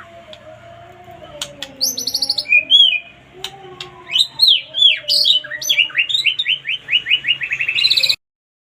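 White-rumped shama (murai batu) singing: loud, varied whistled phrases that build into a fast run of repeated down-slurred notes, then cut off suddenly about eight seconds in.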